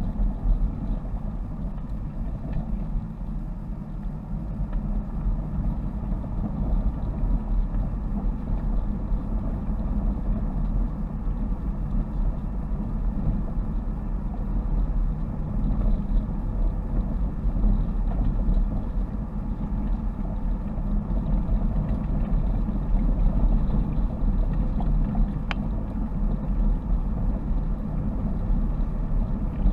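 Inside a car's cabin while driving on a gravel forest track: engine drone and tyre rumble over loose gravel, rough and uneven. A single sharp tick about 25 seconds in.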